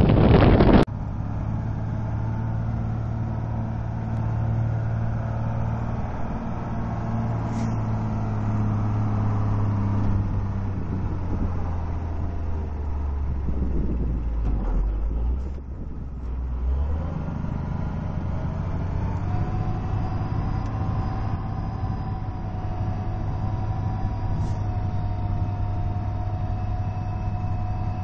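Engines of snow-clearing vehicles fitted with rotary snow blowers, running steadily. A loud rushing noise cuts off within the first second. The engine note sinks gradually in the middle, then a second machine runs with a faint rising whine above its engine hum.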